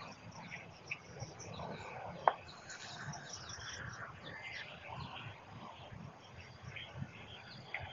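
Faint outdoor ambience of scattered bird chirps and insect calls, with a single sharp click a little over two seconds in.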